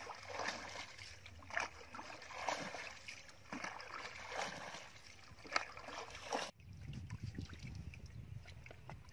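Water splashing and sloshing as a plastic bucket scoops and throws muddy canal water, in surges about once a second. The sound cuts off suddenly about two-thirds of the way in, giving way to a low rumble with faint clicks.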